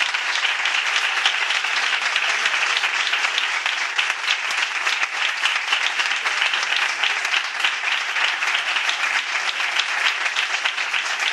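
Many people applauding steadily, a dense patter of hand claps that neither builds nor fades.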